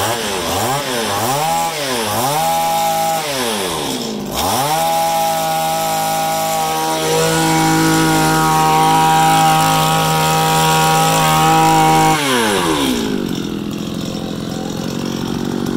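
Komatsu BC2600EZ brush cutter's 26cc two-stroke engine revving. It gives a few quick throttle blips, then is held at high revs for about seven seconds before dropping back to idle near the end.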